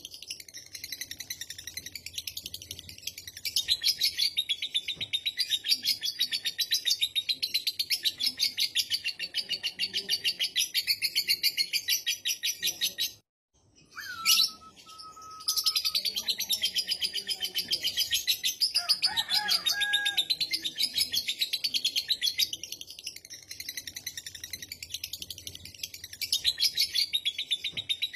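Lovebird in long 'ngekek': a continuous, very fast chatter of rapidly repeated high notes. About halfway through it breaks off for a moment, a short falling whistle and a held tone follow, and then the chatter picks up again.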